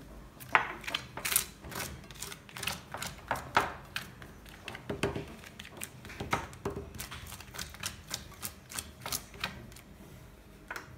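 A spoon clicking and scraping as mayonnaise is scooped from a small bowl and spread over a rumali roti on a plate. It makes a run of irregular sharp clicks, a few a second, and two of them stand out.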